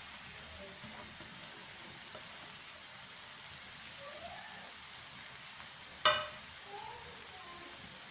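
Finely chopped onion sizzling steadily in hot oil in a frying pan, with one sharp knock about six seconds in.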